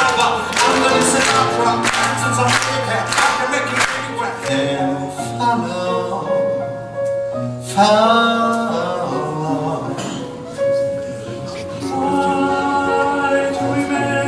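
Live piano music, with long held melody notes and a sliding rise in pitch about halfway through; a violin joins near the end.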